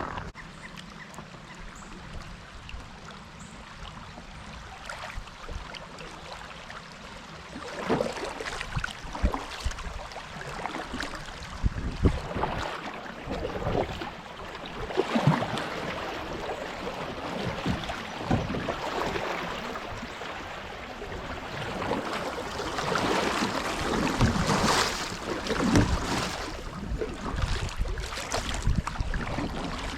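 Creek water splashing and sloshing, with irregular splashes every second or few that start about a quarter of the way in.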